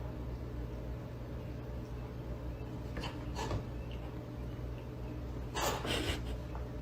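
A steady low hum, with short breathy puffs from an animal: two about three seconds in and a louder pair near the end.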